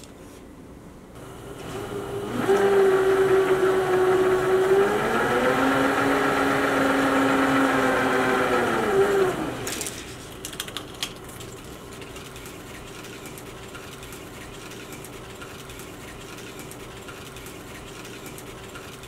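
Steenbeck flatbed film editor's motor running up to speed and whining for several seconds, its pitch shifting upward midway, then running down about nine seconds in. A few clicks follow, and a low steady hum remains.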